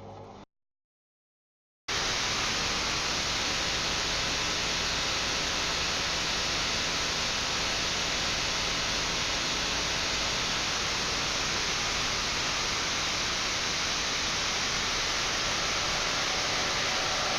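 A low hum cuts off into dead silence. About two seconds in, a loud, steady rushing noise starts abruptly and holds: water and the running drum heard from inside a washing machine.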